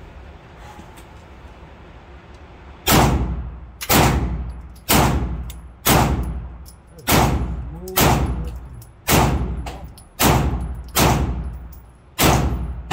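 A firearm fired ten times at an even pace of about one shot a second, starting about three seconds in, each shot echoing and dying away in an indoor range.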